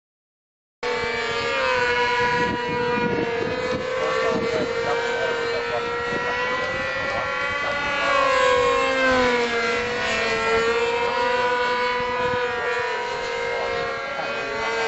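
Several RC combat model planes' small engines buzzing at a high pitch, their pitches wavering and gliding up and down as the planes dive and turn, starting about a second in.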